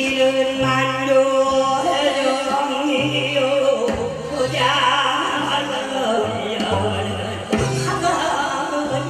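A man singing into a handheld microphone over amplified musical accompaniment with a steady bass line, in the style of a Korean trot or pumba song.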